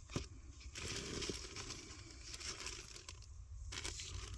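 Faint handling noise of a cabin air filter being turned over in the hands, with a light click just after the start.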